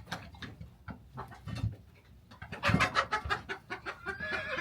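Chickens clucking in short irregular calls, with a louder flurry of squawking a little past halfway and a drawn-out call near the end.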